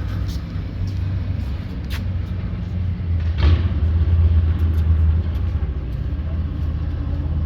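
Low rumble of a road vehicle going by, growing louder about halfway through and easing off near the end.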